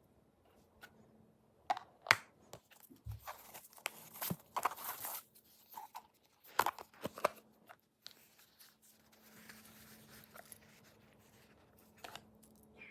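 Packaging being handled and unwrapped: bursts of paper rustling and tearing with several sharp clicks, busiest in the first half, then quieter handling.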